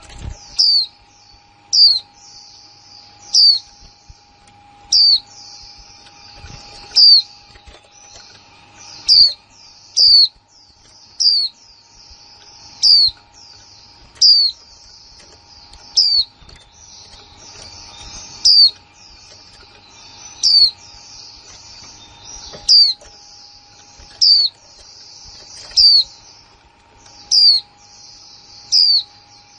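Caged female white-eyes calling. A sharp, high call sweeping downward is repeated about every one and a half to two seconds (the 'kick' call), over a steady high twittering chatter.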